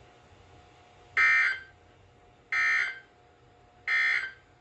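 Emergency Alert System end-of-message data tones from a NOAA Weather Radio broadcast: three short, harsh digital bursts about a second and a half apart, marking the end of the alert.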